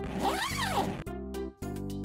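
Zipper of a small fluffy coin purse being pulled, one quick zip lasting about a second, over steady background music.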